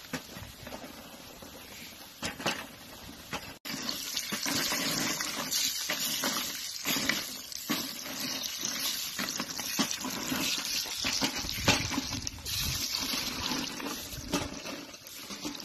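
Pork chicharrones sizzling and crackling as they fry in their own lard in a metal tub, stirred with a wooden paddle. The sizzle gets much louder about three and a half seconds in.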